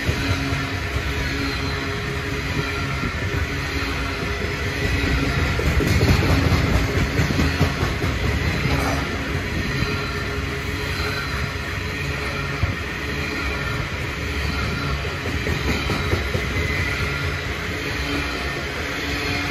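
Loaded coal hopper wagons of a long freight train rolling past close by, their steel wheels running on the rails in a steady noise that swells a little about six to eight seconds in.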